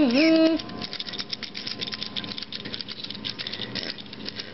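Micropets robotic toy pet sounding a warbling electronic tone that cuts off about half a second in, followed by a fast, dense clicking rattle from the little toy's mechanism as it runs on the floor.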